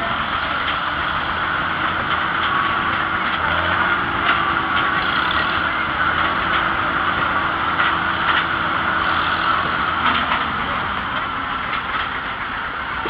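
Vintage tractor engine running steadily as the tractor drives along a dirt trail, heard from on board.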